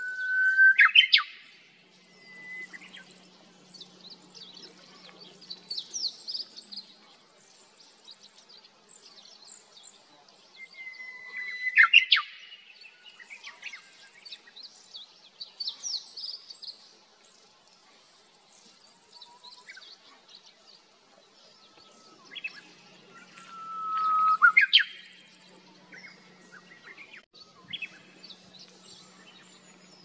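Japanese bush warbler singing its 'hō-hokekyo' song three times, about twelve seconds apart. Each song is a long held whistle that swells and ends in a quick rising flourish.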